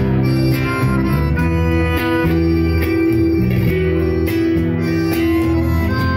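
Live instrumental gaúcho music: a piano accordion plays held chords and melody over a walking electric bass line.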